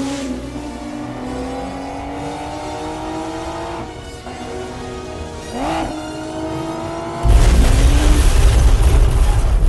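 Car engine revving up with its pitch climbing, breaking off about four seconds in and climbing again, over film score music. Then, a little past seven seconds, a sudden loud, low, roaring rumble.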